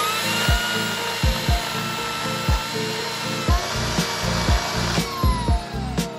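Corded electric chainsaw running at full speed and cutting into a block of wood, its motor whining over a loud cutting rasp; the pitch sags a little mid-way and falls away as the saw winds down near the end. Background music with a steady beat plays underneath.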